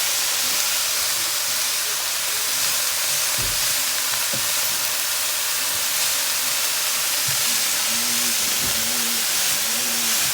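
Shredded cabbage and carrot blend sizzling in a hot frying pan with soy sauce and sesame oil as it cooks down, a steady hiss, with a few faint knocks.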